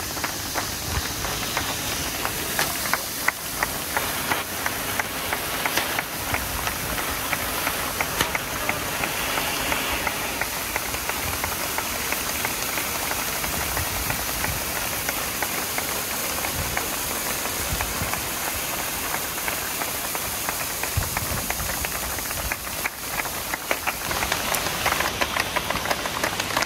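Hand-held red flares hissing as they burn, with many sharp clicks and crackles throughout, growing louder near the end.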